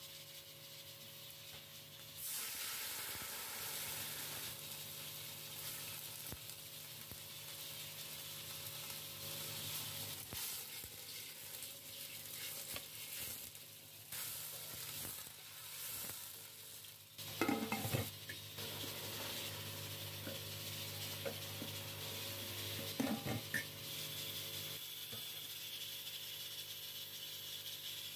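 Cumin seeds sizzling in hot oil in a steel pot, stirred and scraped with a wooden spatula. About halfway through, rice is tipped in from a bowl, and there are two louder knocks in the second half.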